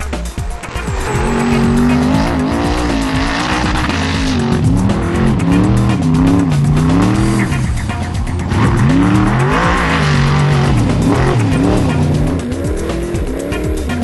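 Unlimited trophy truck's engine revving hard, its pitch swinging up and down every second or two as the throttle is worked over rough ground, with background music under it.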